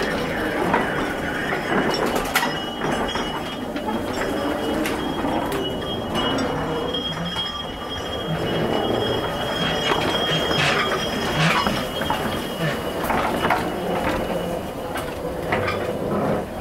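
Small electric locomotive of a backyard miniature railway running on its track: a steady high whine over irregular clicks and knocks of wheels on rail, the whine fading about two-thirds of the way through.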